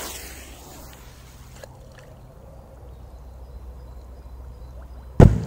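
A large P2000 firecracker explodes underwater in a bog pond about five seconds in: one sudden, very loud, deep boom, with water starting to spatter down after it.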